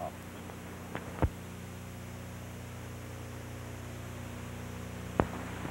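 Steady electrical mains hum with faint hiss, broken by a few short clicks: two about a second in and one near the end.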